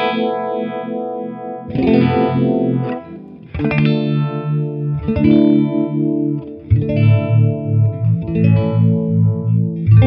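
Electric guitar chords strummed through a Mattoverse Just A Phase phaser pedal, a new chord every couple of seconds, with the phaser's sweep moving through each ringing chord.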